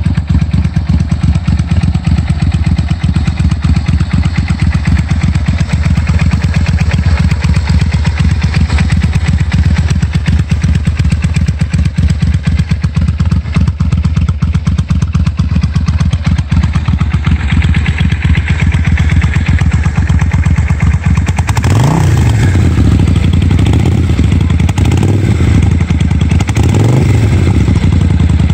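Suzuki VS800 Intruder V-twin idling through an aftermarket Jardine exhaust, with an even, loud exhaust beat. Near the end the throttle is blipped three times, each a quick rise and fall in revs.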